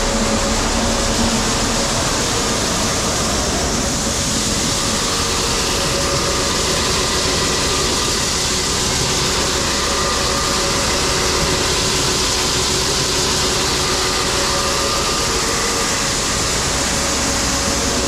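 Grain pit auger running steadily while shelled corn pours from a hopper-bottom trailer's open gate into the pit, giving an even mechanical rush over a low hum.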